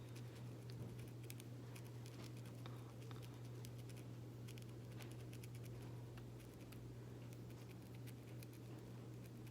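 Faint, scattered small clicks and rustles of hair being worked during a sisterlock repair, over a steady low hum.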